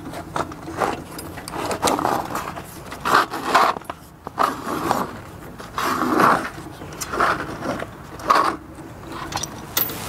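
Tire levers prying a bicycle tire's bead off the rim: irregular scrapes and rubbing with scattered clicks.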